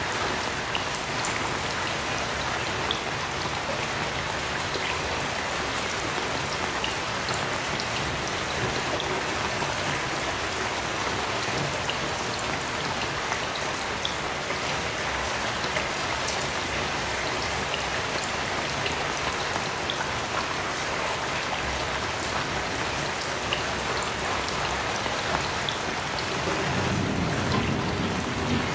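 Heavy rain falling steadily, with scattered drops tapping close by. Near the end a low rumble of distant thunder swells in under the rain.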